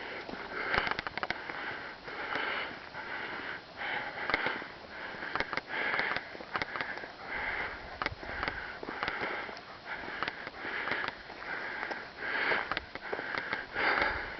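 A hiker breathing hard and rhythmically while walking, with a breath about every second or less, and scattered sharp clicks between breaths.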